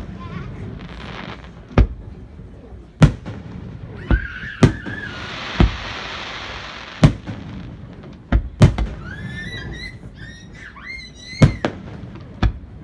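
Aerial fireworks going off: about ten sharp booms at uneven intervals, with a sustained hissing crackle in the middle.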